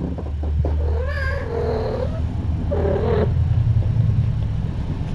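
A cat giving two drawn-out, wavering meows: a long one of about two seconds, then a shorter one, over a steady low rumble.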